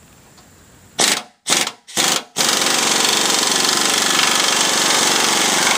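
Pneumatic wrench on a rusted nut: three short trigger blips, then a steady run of about three seconds that winds down with a falling whine as the tool is released. It is backing out the last corroded nut on the tail light panel.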